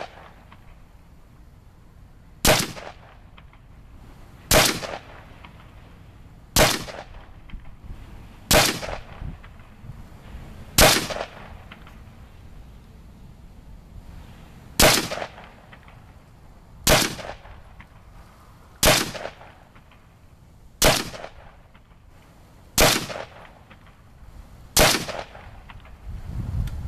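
DPMS AR-15 rifle in .223 fired in slow, single aimed shots: eleven sharp cracks about two seconds apart, each trailing off briefly, with one longer pause of about four seconds a little before halfway.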